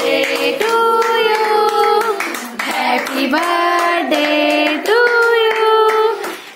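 A birthday song with long held sung notes, and hands clapping along.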